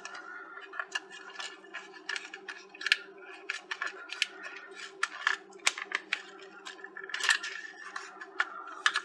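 Irregular light clicks, taps and scrapes from fingers handling and pressing on the plastic back casing of a Retekess V115 shortwave radio, over a steady low hum.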